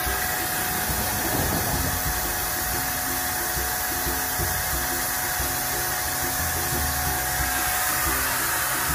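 Handheld electric paint sprayer running continuously as it sprays paint onto wooden fence boards: a steady motor whine over the hiss of the spray, with the tone fading near the end.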